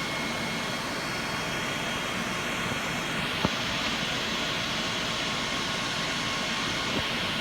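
Steady rushing fan noise with faint high whining tones, from the running fans of a hot equipment room and its ductless air conditioner. A single light click about three and a half seconds in.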